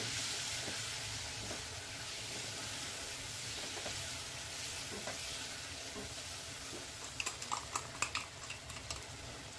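Boiled potatoes sizzling in hot oil as a lemon juice and sugar solution goes into the pan, stirred with a spatula. The sizzle is loudest at the start and then runs steady, with a few light scrapes and taps of the spatula on the pan near the end.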